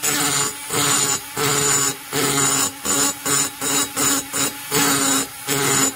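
Hand-held rotary grinder spinning a small burr inside the transfer port of an Echo CS-670 chainsaw's aluminium cylinder. The motor hum runs steadily, while the burr bites the metal in about a dozen short passes of harsh grinding, each under a second, with brief gaps between them.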